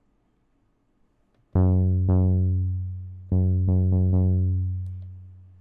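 Synth bass from Maschine software, played from the Maschine Mikro MK3's pads in keyboard mode. A low note is struck about a second and a half in and again half a second later, then four quick repeats of the same note, which fade away.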